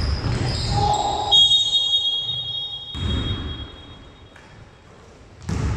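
Basketball game in a gym: short high sneaker squeaks and court noise, then a long, high, steady referee's whistle lasting about three seconds, made of several close tones like a pea-less whistle. A single thud near the end.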